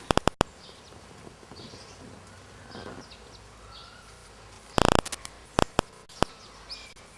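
Faint bird calls, a few short high chirps and one falling call, over a quiet background. Loud crackling bursts break in about two-thirds of the way through.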